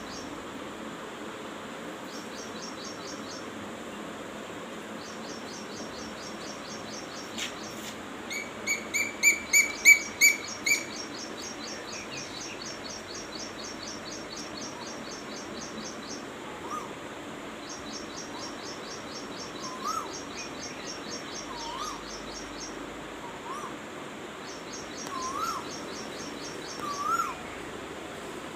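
Asian koel calling: a quick run of about eight shrill, repeated notes that grow louder, then from about halfway on a series of short calls that rise and fall in pitch, one every second or two and louder toward the end.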